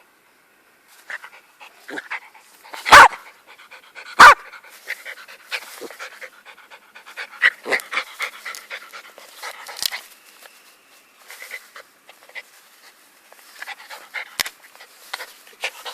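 Jack Russell terrier panting in quick, short breaths, broken by two loud, sudden sounds about three and four seconds in.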